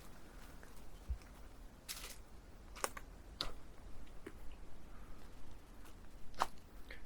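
Sparse, irregular soft clicks and crunches, about half a dozen over several seconds against a faint hiss: handling noise from someone walking a mountain path with a handheld camera rig.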